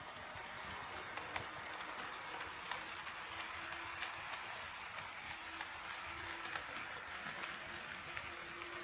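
HO scale model train running on KATO Unitrack: a steady rolling hiss from the wheels and motor that grows a little louder over the first couple of seconds, with scattered light clicks and a faint hum coming and going.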